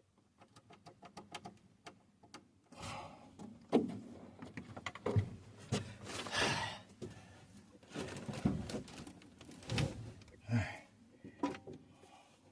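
Hands working with equipment and tools: a quick run of small clicks, then irregular knocks, clunks and rustling as objects are handled and set down.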